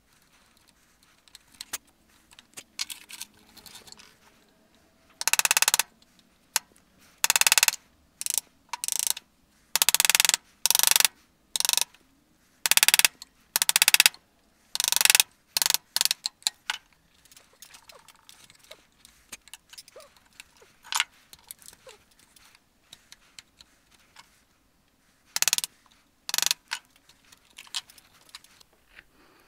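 A hand tool cuts into soft wood in a run of short, loud, scraping strokes, about a dozen within ten seconds, then a pause with faint scratching and two more strokes near the end.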